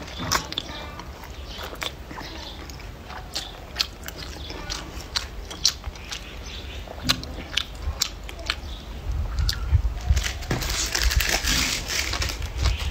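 Close-miked chewing with wet mouth clicks and smacks, then about ten seconds in a loud, hissing slurp of stir-fried rice noodles sucked into the mouth.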